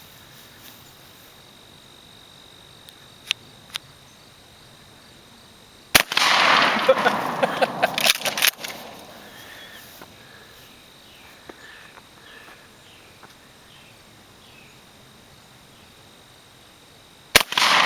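Two shotgun shots about eleven seconds apart. Each is a sharp crack followed by a couple of seconds of loud rattling and clattering.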